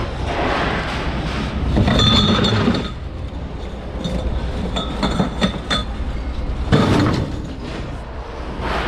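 Loose scrap metal clattering and clinking as pieces are tipped and dropped, with short metallic rings. It comes in several bursts, the loudest about two seconds in and again near seven seconds.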